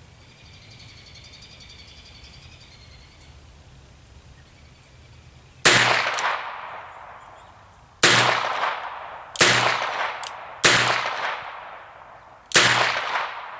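Five shots from a .22 LR revolver, fired one to two seconds apart after a few quiet seconds, each shot followed by a long echoing tail.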